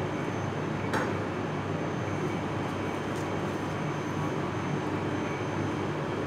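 Steady rushing hum of a commercial kitchen's ventilation fan, with one light click about a second in.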